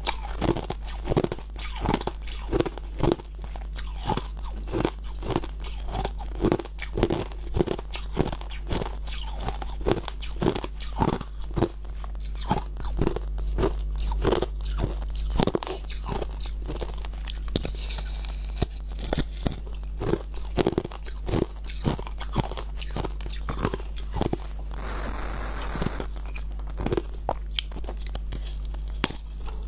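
Brittle frozen ice being bitten and chewed close to a clip-on microphone: sharp crunches, several a second, throughout.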